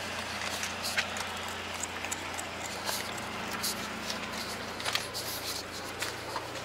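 GAZelle van engine running steadily at low revs, heard from inside the cab, with scattered light clicks and rattles.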